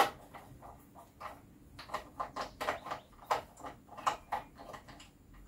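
Scattered light clicks and knocks of hands handling the opened plastic housing of a Nemtek Wizord 4 electric fence energizer, with a sharper click at the very start.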